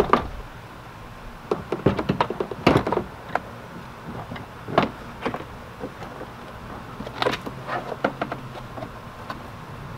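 Plastic interior door panel of a Ford Transit being pressed onto the door: irregular clicks and knocks as it is fitted into place. They come in a run about two to three seconds in, with a sharp knock near five seconds and more around seven to eight seconds.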